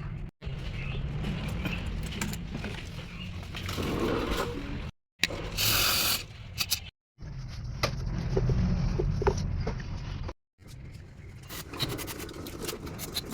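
Mechanical workshop noises of tools scraping and clicking, over a steady low rumble, in short clips that cut off abruptly.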